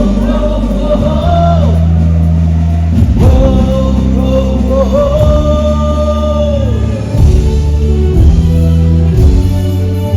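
Band music with a voice singing long held notes over a steady bass line.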